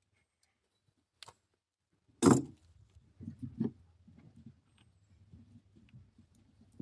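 A sharp knock about two seconds in, then a few lighter knocks and small clatter: pieces of lumber being handled and set in place.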